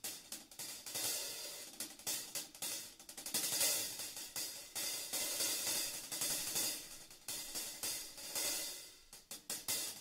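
Intro music of cymbal-like shimmer and hiss, swelling and fading again and again with no steady beat.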